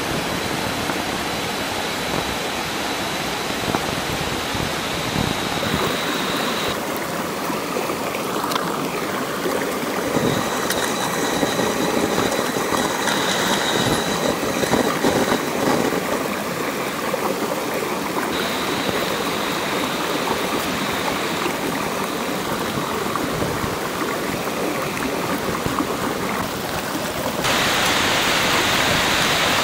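Steady rush of a stream's flowing water, whose tone shifts abruptly about six seconds in and again near the end.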